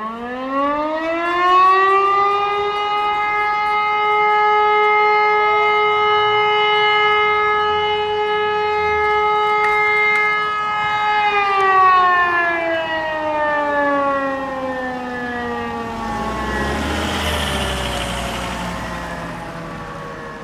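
Civil defense siren sounding the fire brigade call-out alarm: its tone rises over about two seconds, holds steady for about nine, then slowly falls away. A brief rush of noise passes about sixteen seconds in.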